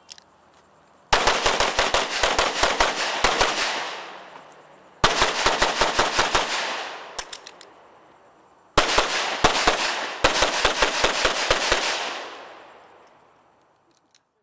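Open-division race pistol fired in three rapid strings of shots, each string fading out in echo, with short pauses between strings as the shooter moves between positions during a timed stage.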